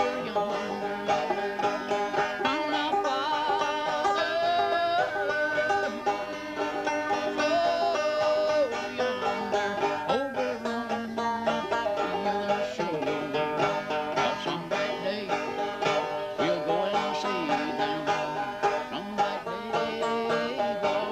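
Banjo being strummed in quick, steady strokes, playing a tune.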